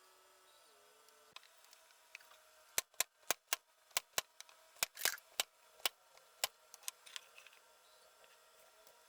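A run of about a dozen sharp taps on wood, two to three a second and irregularly spaced, louder in the middle and trailing off after about four seconds.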